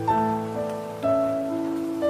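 Slow, calm piano music, with new notes or chords starting about once a second, over the even patter of rain.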